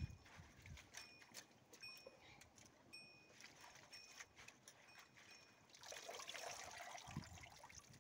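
Faint wet trickling and splashing of water as nettle greens are rinsed and squeezed by hand in a steel pan, with a louder wet rush a little before the end. Short faint high chirps repeat in the background.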